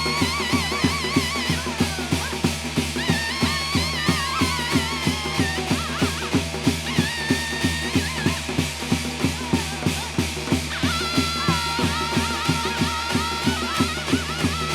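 Korean shamanic gut ritual music: drums beating a fast, steady rhythm of about three to four strokes a second under a pitched melody that wavers on held notes and slides down between them.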